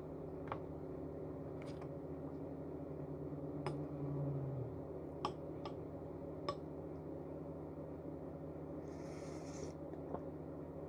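Eating noodles: a handful of sharp utensil clicks against a bowl over a steady low electrical hum, with a short hiss near the end.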